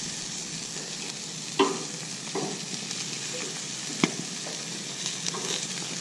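Chicken wings sizzling steadily on the grates of a Camp Chef FTG600 propane grill, with a few sharp clicks of metal tongs as the wings are turned, the loudest about one and a half and four seconds in.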